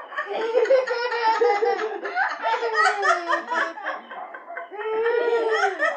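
People laughing hard, in long voiced peals that slide up and down in pitch.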